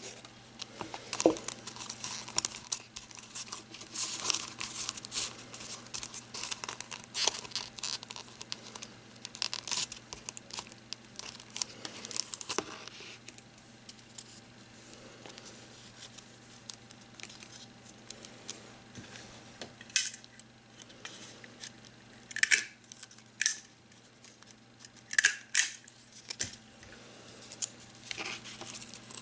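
Close-up crinkling and rustling of paper and thin cardstock being handled: busy and continuous in the first half, then quieter, with a few separate sharper rustles in the second half.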